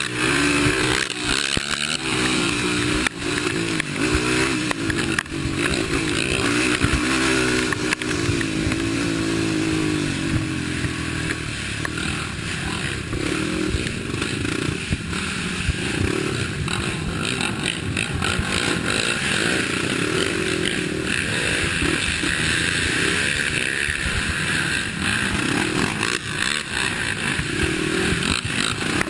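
Racing quad (ATV) engine running hard on a dirt and mud cross-country track, its pitch rising and falling over and over with throttle and gear changes, heard close up from the rider's helmet camera along with rattling and clatter from the rough ride.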